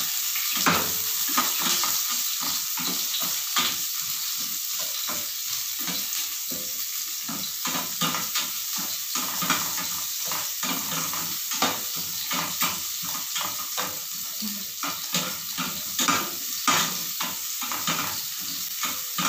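Chopped onions sizzling in butter and oil in a nonstick frying pan, with a steady hiss and frequent short scrapes and taps as a slotted spatula stirs them against the pan.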